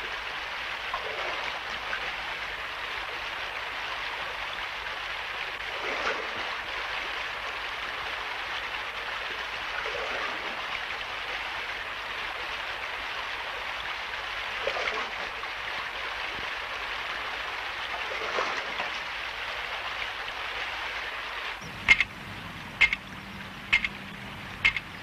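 Steady rushing noise, like running water, with soft swells every few seconds. Near the end, sharp clicks begin, about one a second.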